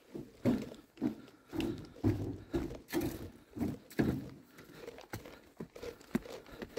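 Footsteps of a walker crossing a wooden footbridge with wire-mesh decking and climbing timber steps: irregular thuds, about two a second.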